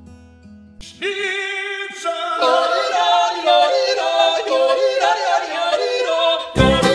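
Background music: a guitar note dies away, then a solo voice yodels. Near the end a full band with drums comes in.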